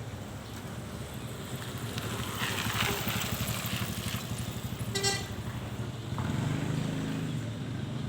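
Vehicle engine running steadily, swelling for a moment near the end, with one short horn beep about five seconds in.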